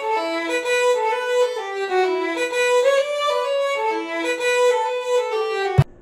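Intro music: a melody of held notes that cuts off suddenly with a click near the end, leaving faint room tone.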